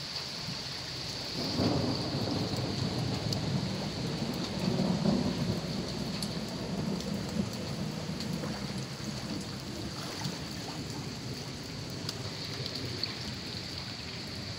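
Torrential rain hissing steadily, with a long low rumble of thunder that swells about a second and a half in, peaks around five seconds and dies away.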